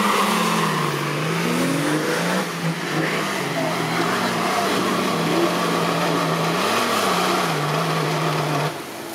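Nissan Patrol 4x4's engine running at high revs under load on a steep dirt climb, over the hiss of tyres spinning in loose dirt. The revs rise briefly near the start and again about seven seconds in, and the sound drops away abruptly just before the end.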